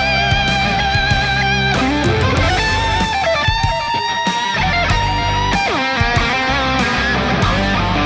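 Electric guitar playing a lead line through a delay pedal: sustained notes with vibrato and bends, and a long held note that slides down in pitch about six seconds in, over a steady low accompaniment.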